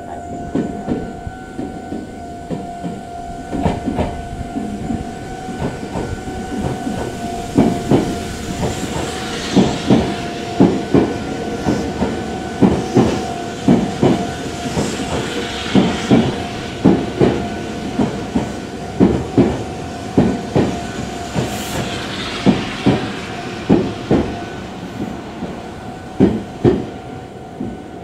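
Meitetsu electric commuter train running past along the platform, its wheels clicking over the rail joints in a steady rhythm of paired clicks, with rumble and hiss between them. The clicks fade out as the last car clears near the end.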